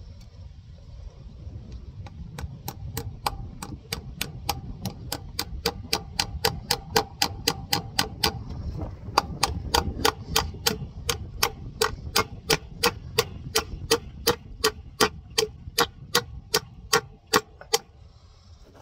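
A hammer driving a fencing staple into a wooden fence post over a wire: light, quick blows about three a second, each with a short metallic ring. The blows pause briefly about halfway through, then carry on until near the end.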